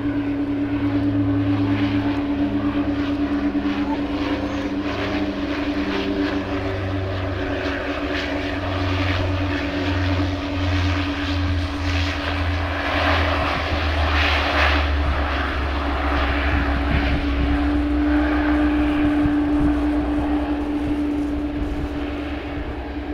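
Twin-turboprop commuter airliner landing: a steady propeller drone over a low engine rumble. The noise swells louder for a few seconds about halfway through as the aircraft rolls out on the runway, then eases.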